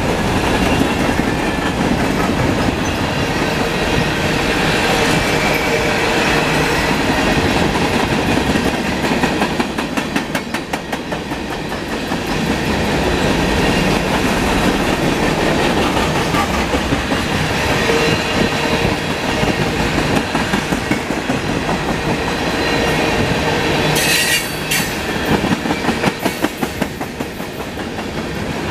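Freight cars of a long train rolling past at close range: a steady rumble of steel wheels on rail with rhythmic clickety-clack over the rail joints and a faint wheel squeal. Near the end come two brief, sharp, high-pitched sounds.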